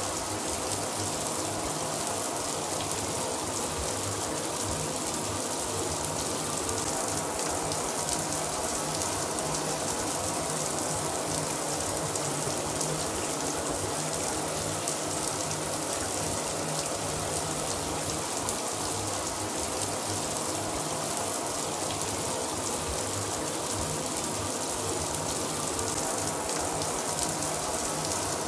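Shower running steadily, the spray of water hissing and pattering on the shower floor.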